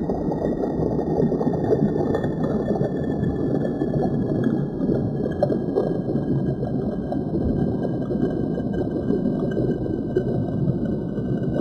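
Steady, muffled noise of shallow stream water running over rocks.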